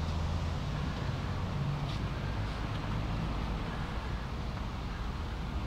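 Steady low outdoor rumble: wind on the microphone mixed with road traffic, with a few faint ticks.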